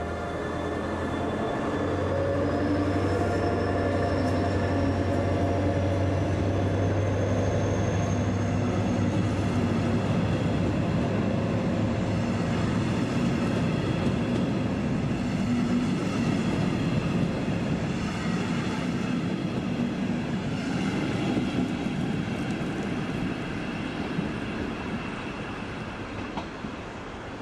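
Electric locomotive hauling a double-deck regional train as it pulls away: a high whine from the traction drive rises slowly as it gathers speed, over the steady rumble and clatter of wheels on the rails, fading near the end.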